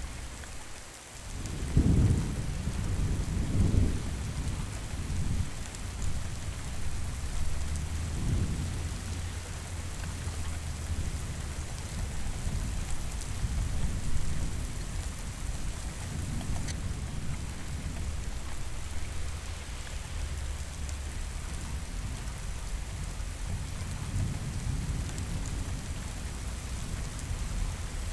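Steady heavy rain with rolling thunder. Low rumbles swell about 2 and 4 seconds in, a softer one follows near 8 seconds, and the thunder then settles into a low, continuous growl under the rain.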